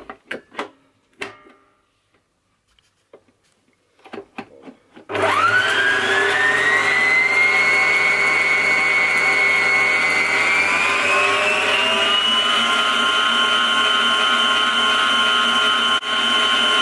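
A few clicks and knocks as the head of a Moulinex stand mixer is lowered, then about five seconds in its motor starts with a rising whine, whisking egg whites and sugar into meringue. About halfway through the whine climbs to a higher, steady pitch.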